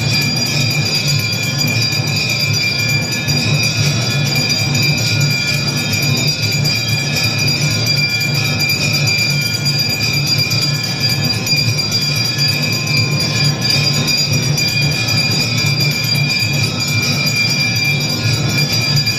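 Temple bells ringing without pause during aarti: a steady high ringing over a dense, busy low din, with no let-up.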